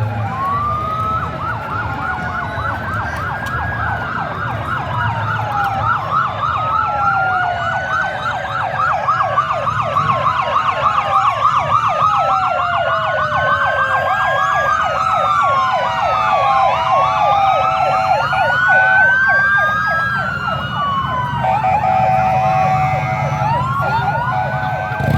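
Several emergency-vehicle sirens sounding at once, slow rising-and-falling wails overlapping with fast yelping sweeps, over a steady low rumble of vehicles.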